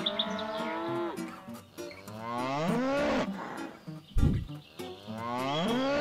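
Cows mooing: three long moos, each falling in pitch at the end, with a short low thump between the second and third. The cows are distressed.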